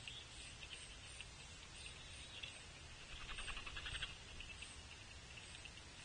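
Faint insect chorus of rapid pulsed trills, swelling briefly about three to four seconds in, over a steady low outdoor rumble.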